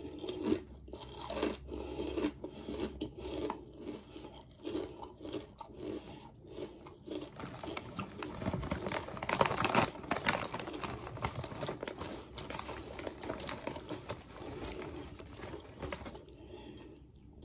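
A person chewing ridged honey mustard Ruffles potato chips with the mouth near the microphone: steady crunchy chewing, about three chews every two seconds. A louder crackling stretch comes about eight to eleven seconds in.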